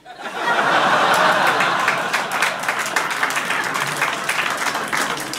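Live audience laughing and applauding after a punchline, swelling up within the first half second and slowly dying away.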